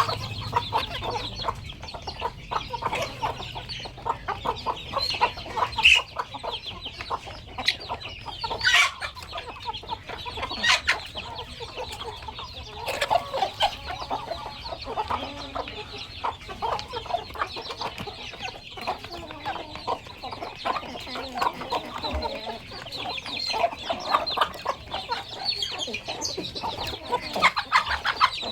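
A flock of free-ranging village chickens clucking continually, many short calls overlapping, with a few sharper, louder calls standing out now and then.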